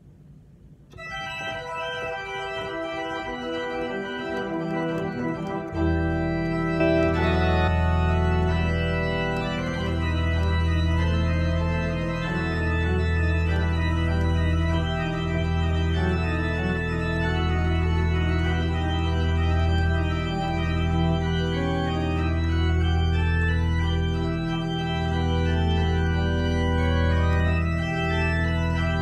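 Church organ playing slow, sustained chords. The music starts about a second in, and deep pedal bass notes come in about six seconds in and hold under the chords.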